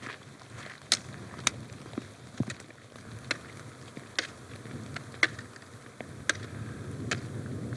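A hiker's footsteps on rough ground, sharp clicks and scuffs at a slow walking pace of about one a second, over a steady low rumble of wind or handling noise.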